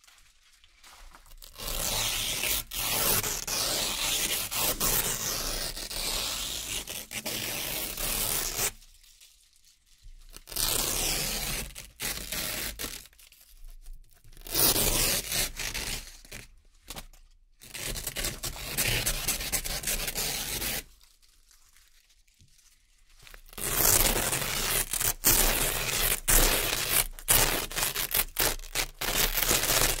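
Velcro (hook-and-loop) strips being peeled slowly apart, a crisp crackling rip. There are several long peels of a few seconds each, with short pauses between them.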